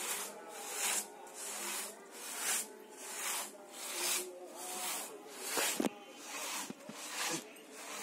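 Two-man pit saw ripping a big log lengthwise, its long blade rasping through the wood in steady strokes, a little faster than one a second. A single sharp knock comes about six seconds in.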